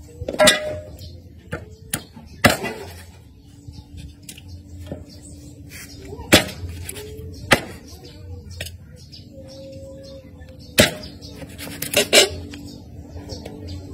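Cleaver chopping through a skinned snake onto a wooden chopping block: about seven sharp chops at uneven intervals, two of them in quick succession near the end.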